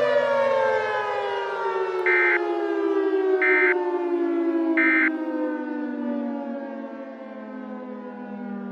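Civil defense siren winding down, its pitch falling slowly and steadily. Three short high beeps sound about a second and a half apart in the first half.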